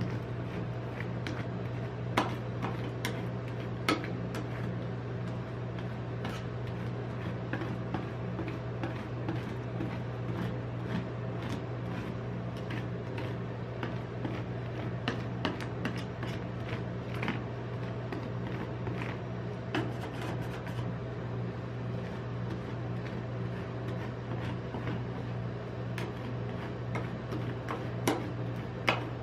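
Metal spatulas scraping and tapping on the steel cold plate of a rolled-ice-cream pan as the ice cream is spread thin: scattered sharp clicks and scrapes, a few louder knocks, over a steady low hum.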